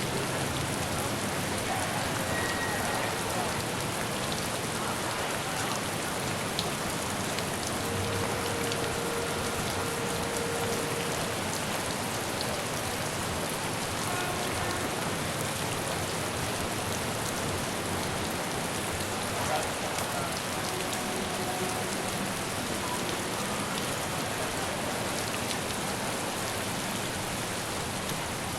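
Steady rain falling on city surfaces, an even hiss at a constant level throughout, with a few faint brief tones now and then.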